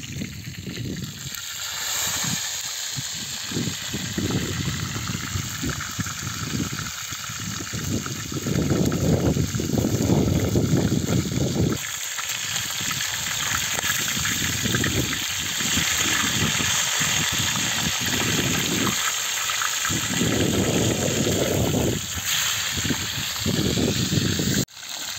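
Trout pieces sizzling and frying on a sac, a round iron griddle over a wood fire: a steady hiss, with heavier low rumbles that come and go over it.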